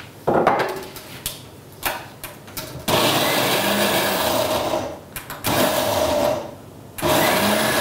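Arshia countertop blender chopping chickpeas, run in pulses: a burst of about two seconds, then two shorter bursts near the end. A few knocks come before the motor first starts.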